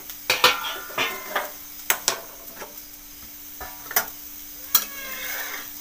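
Metal spatula scraping and clinking against a hot flat metal tava as a crisp tur dal flatbread is lifted off it, with several sharp clinks that ring briefly and a light sizzle.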